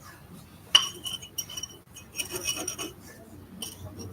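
Metal parts or tools clinking against each other with short bright rings: one sharp clink about three quarters of a second in, then a run of lighter clinks and taps, and a couple more near the end.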